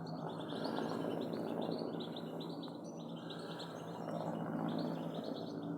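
European goldfinch singing, a twittering song of rapid high notes in runs with short breaks, over steady low background noise.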